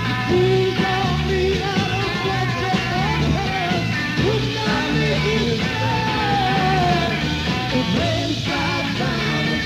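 Late-1960s psychedelic rock band recording playing, a sung vocal line wavering over steady bass notes and the full band.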